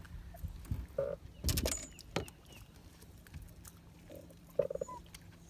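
Scattered knocks and clatter of fishing gear being handled on a bass boat's deck, the loudest about a second and a half in, with a couple of brief squeaks and a faint steady hum underneath.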